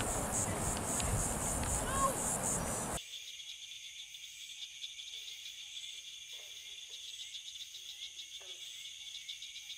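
Night insects chirping in a fast pulsing rhythm over a steady rush of noise. About three seconds in, an edit switches to a steady high-pitched insect chorus with faint voices in the background.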